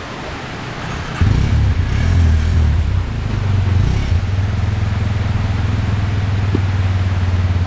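Dirt bike engine picking up suddenly about a second in, then running steadily.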